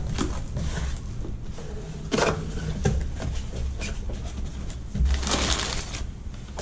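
Cardboard box flaps being pulled open and crumpled tissue-paper packing rustling as it is handled and lifted out, with a few sharp knocks of cardboard. The loudest rustle comes about five seconds in.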